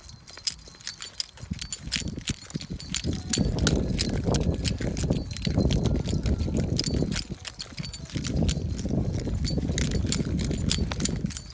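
Walking on a leash along a gritty path: quick, irregular clicks of footsteps, with stretches of low rumbling noise from about three seconds in that break off briefly twice.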